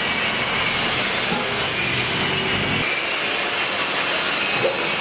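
Automatic packing machine running: a steady mechanical whir and hiss with faint high steady tones, over a low rumble that cuts off suddenly about three seconds in.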